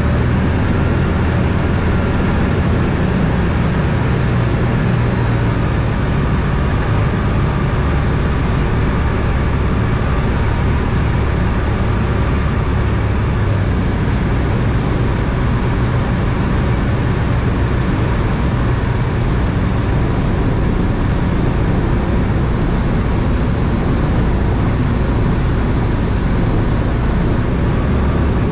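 Ikarus C42 ultralight's Rotax engine and propeller running steadily in flight, heard from inside the cockpit.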